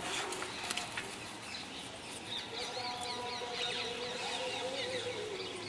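Small birds chirping in quick runs of high notes from about two seconds in, over a steady outdoor background, with a few sharp clicks near the start.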